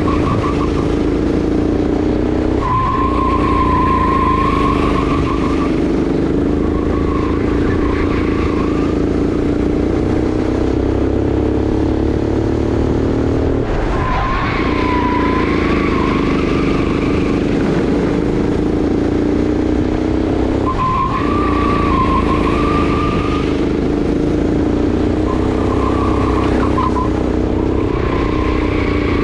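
Sodi RX8 kart's 390 cc single-cylinder four-stroke engine running hard around a lap, its pitch dropping and climbing again at each corner, about three times. Tyres squeal through several of the corners.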